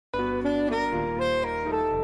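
Instrumental theme music starting abruptly: a melody stepping through short held notes over a steady bass line.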